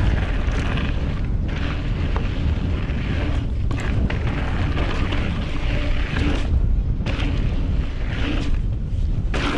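Wind buffeting the action-camera microphone, with the rumble of a hardtail mountain bike's tyres on a dirt trail, as the bike descends at speed. It is a loud, steady rush with no let-up.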